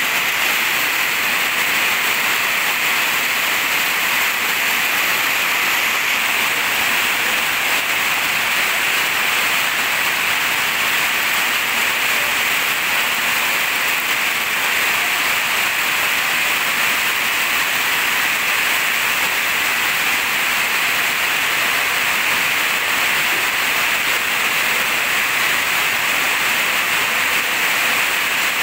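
Heavy rain falling steadily onto a wet concrete yard: an even, unbroken hiss of rain.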